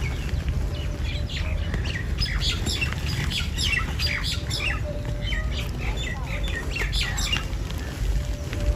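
Birds chirping and squawking in a quick string of short, falling calls, with a steady low rumble underneath.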